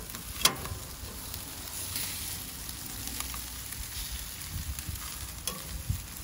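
Chicken wings and quarters sizzling on a barbecue grill's grate, a steady crackling hiss. A single sharp click about half a second in.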